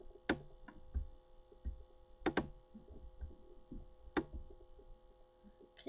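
A few sharp clicks at a computer: one near the start, a quick pair about two seconds in, and another about four seconds in. A faint steady electrical hum runs underneath.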